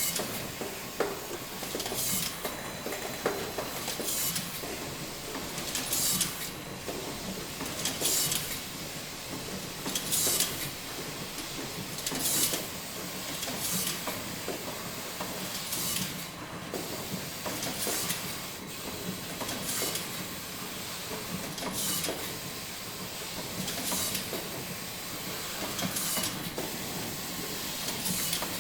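Machinery hissing steadily, with a short sharp hiss about every two seconds.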